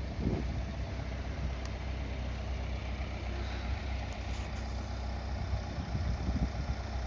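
Vauxhall Vivaro van's diesel engine idling steadily.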